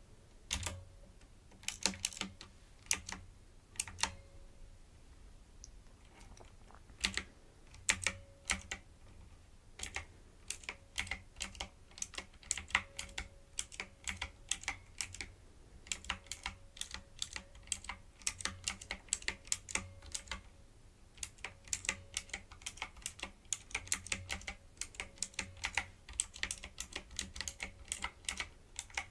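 Typing on a typewriter-style keyboard: a few scattered keystrokes over the first ten seconds, then a fast, steady run of clicking key presses with a brief pause about twenty seconds in.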